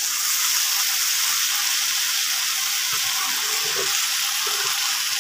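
Onion stalks, eggplant and potato frying in oil in a nonstick pan, cooked without water, giving a steady high sizzle. A spatula stirs them with soft scrapes.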